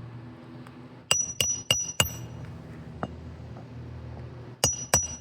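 Hammer blows ringing on metal: four quick strikes about a second in, a lighter one a second later, and three more near the end.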